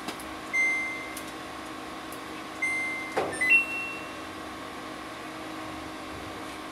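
Samsung clothes dryer control panel beeping as its buttons are pressed: two single beeps, then a short two-note chime that steps up in pitch, with a click in between, over a steady hum.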